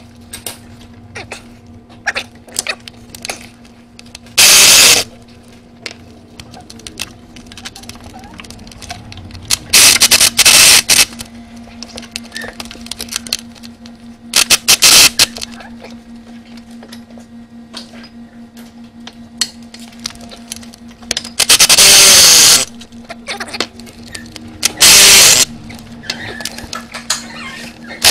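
Cordless power tool with a 13 mm socket running in about six short, loud bursts as the exhaust manifold bolts are spun loose. Between bursts come small metallic clicks of the socket and hardware over a steady low hum.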